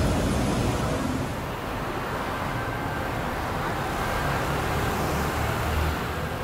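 Steady city traffic noise: the continuous hum of cars on a busy street.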